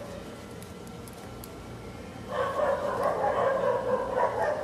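A dog barking repeatedly, starting about halfway in, after a faint steady hum.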